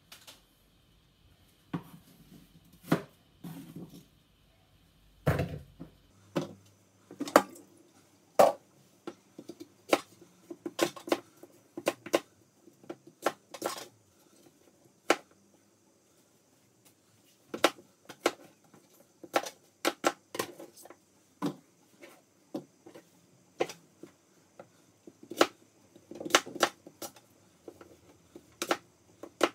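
Kitchen knife cutting apples on a cutting board: sharp, irregular knocks of the blade striking the board, coming in quick runs with short pauses between.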